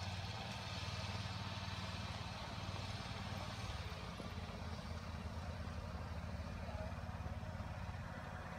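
Faint, steady sound of a distant light airplane's piston engine running, a low pulsing hum.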